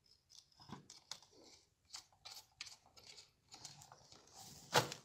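Faint, scattered small clicks and scrapes of a screwdriver and a wire being worked into a contactor's screw terminal, with one sharper click near the end.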